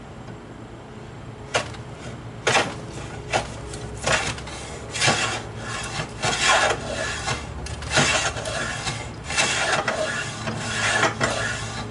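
Restored Stanley No. 7 jointer plane pushed along a poplar board in repeated scraping strokes, one every second or so, starting about a second and a half in. Its mouth is set too narrow and clogs with shavings, so the plane soon jams.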